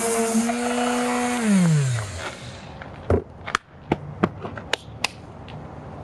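Corded electric orbital sander running with a steady hum on 80-grit paper against a fiberglass patch. About a second and a half in it is switched off and winds down in falling pitch. A few sharp clicks and knocks follow.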